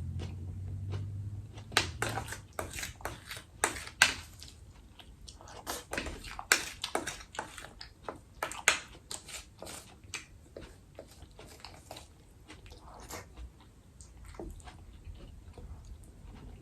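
A person chewing a mouthful of food with wet mouth clicks and smacks, dense and sharp for the first half, then sparser and quieter.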